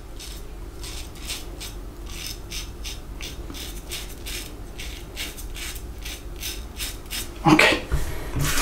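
Double-edge safety razor with a Gillette 7 O'Clock Super Platinum blade scraping through lathered stubble in short, quick strokes, about three to four a second, a crisp rasp with each stroke. Near the end the strokes stop and louder knocks follow.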